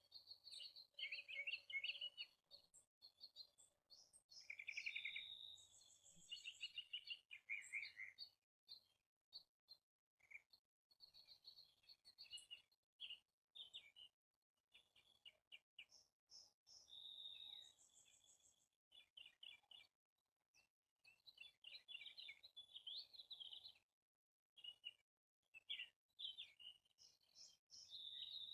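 Songbirds chirping and singing in short, quick phrases and trills, several calls overlapping, with brief pauses between bursts.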